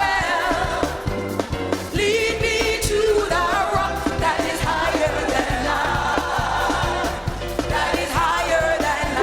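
A song with singing voices over a heavy, pulsing bass line, played loud through a sound system. It comes in suddenly after a brief gap.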